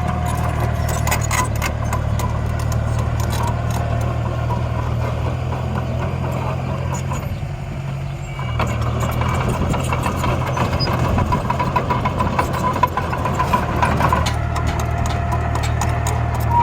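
Dump truck engine idling steadily, dipping briefly about eight seconds in and then picking up again, with scattered clicks.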